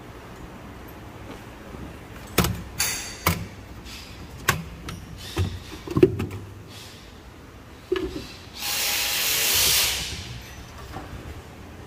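A run of sharp metal clanks and knocks from tools and parts being handled during work on a combine harvester's engine oil change, then a steady hiss for about a second and a half near the end.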